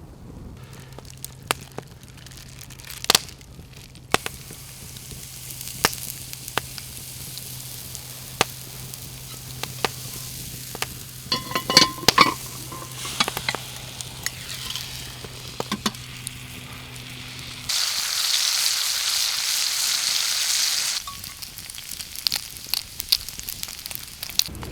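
Bacon frying in a pan, sizzling with a steady hiss and scattered pops and spits, with a few metal clinks of a utensil just before the middle. Near the end a much louder burst of sizzling lasts about three seconds and stops abruptly.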